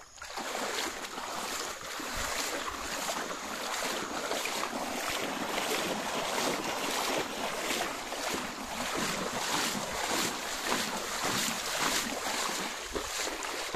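Feet wading through muddy floodwater over a dirt road, splashing steadily at a walking pace of about two steps a second.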